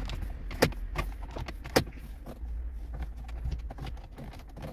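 Small plastic clicks and rattles from a hand working the manual heater/AC control dials and lever on a Kia Morning's dashboard panel, with two sharper clicks in the first two seconds, over a low steady hum.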